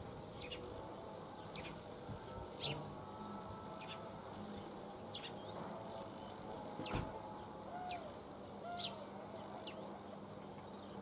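Small birds chirping: short, high notes that drop sharply in pitch, roughly one a second at irregular intervals, with a single dull knock about seven seconds in.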